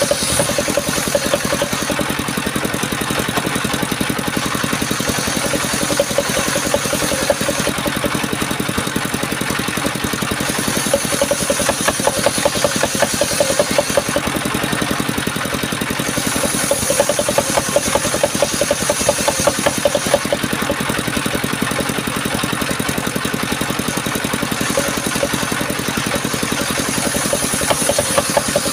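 Portable circular sawmill, its engine running steadily with a fast even beat, and a high hiss that swells and fades every few seconds.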